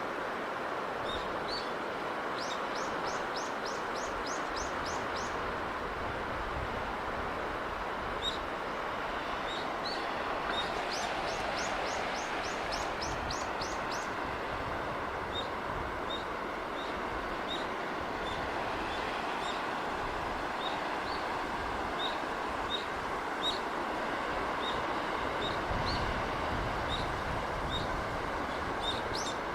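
Steady rushing sea-breeze noise with small birds calling over it: scattered single high chirps, and two rapid trills of quick falling notes, one a few seconds in and another about eleven seconds in.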